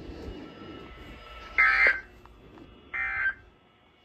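Two short, harsh buzzing bursts of NOAA Weather Radio SAME digital data, the end-of-message code that closes the weekly test, played through a radio receiver's speaker. The first comes about one and a half seconds in and the second a little over a second later, after faint hiss.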